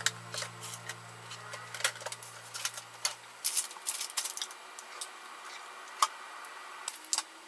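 Scattered light clicks and taps of kitchen handling on a wooden cutting board, with a kitchen knife cutting through chikuwa fish cake near the end; one sharper knife tap about six seconds in.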